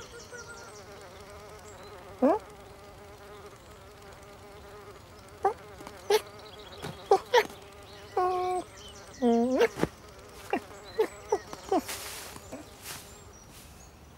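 A cartoon housefly buzzing steadily, with a string of short, sharp cartoon sound effects over it: a quick rising sweep about two seconds in, then snaps and clicks, and a cluster of brief pitched chirps past the middle.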